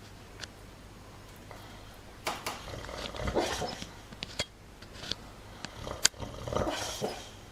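A sleeping dog snoring: quiet at first, then from about two seconds in a few noisy breaths, with short sharp clicks between them.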